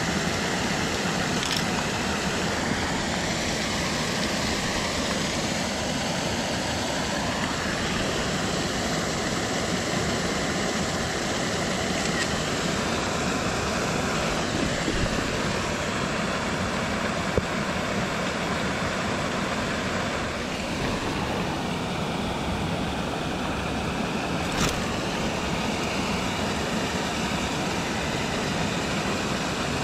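Steady rush of flowing river water, with a few faint clicks now and then.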